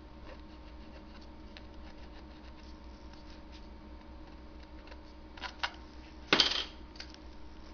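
Pencil faintly scratching as it traces around a penny on papier-mâché, then a couple of light clicks and the copper penny set down on a tabletop with a short clink about six seconds in.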